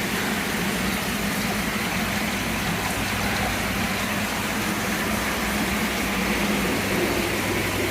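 Steady hum and hiss of the koi vat's pump and aeration equipment running, with no breaks.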